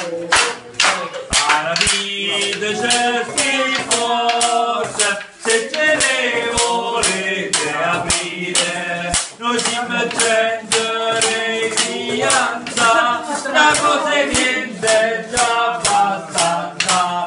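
A group of men singing a traditional song in unison, accompanied by a steady beat of wooden clappers clacking about two to three times a second.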